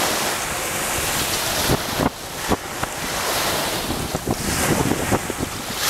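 Wind buffeting the camera microphone, with small waves washing onto a sandy shore underneath; a few short gusty thumps come about two seconds in.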